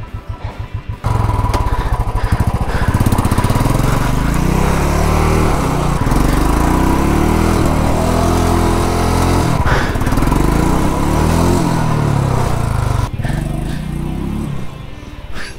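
Motorcycle engine revving hard, its pitch rising and falling again and again; it starts abruptly about a second in and drops away near the end.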